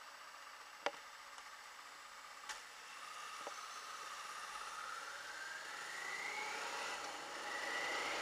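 Faint, muffled Honda Africa Twin RD03 V-twin motorcycle pulling away from a standstill, with a few light clicks at first. A whine then climbs steadily in pitch as the bike accelerates, drops back once near the end as it shifts up, and climbs again.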